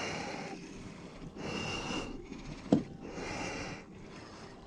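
A person breathing hard, loud exhales about every second and a half. A single sharp knock comes a little past halfway.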